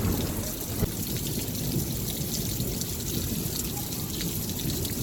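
Rain falling steadily, many separate drops ticking down over a steady low rumble, with a short thump just before the first second.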